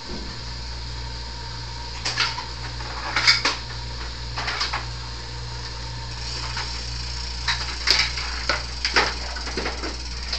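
A steady low electric hum switches on at the start and keeps running. Over it come scattered clicks and knocks of things being handled and set down, the loudest about three seconds in and again near eight seconds.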